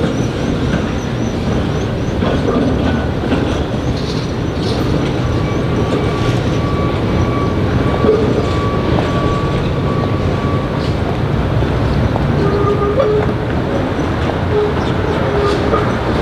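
PCC streetcar rolling along the rails and through a curve, its wheels rumbling and clacking over the track. A thin, steady wheel squeal runs for several seconds in the middle as the car takes the curve.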